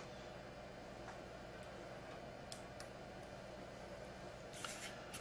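Quiet room tone with a steady low hum, a few faint ticks, and a soft rustle near the end.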